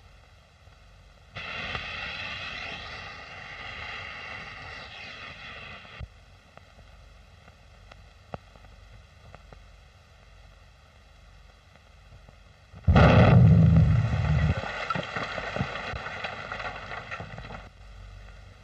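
A lit dynamite fuse hissing for about four and a half seconds, then, about thirteen seconds in, a single loud dynamite blast with a deep rumble that dies away over the next few seconds.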